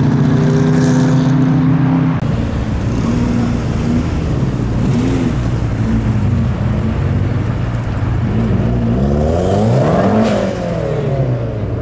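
Modified car engines running and pulling away, their pitch shifting with the throttle; about nine seconds in one engine revs up sharply and drops back.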